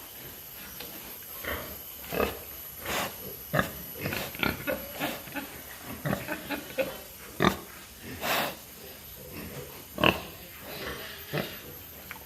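Pigs and piglets grunting and squealing, many short separate calls with a longer squeal about eight seconds in.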